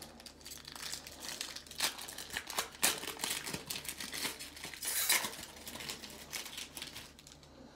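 Foil baseball card pack wrapper being torn open and crinkled by hand: a run of irregular crackles, loudest about three and five seconds in and tapering off near the end.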